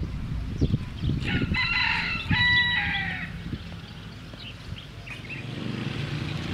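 A rooster crowing once, about a second in, for about two seconds, over a low outdoor rumble.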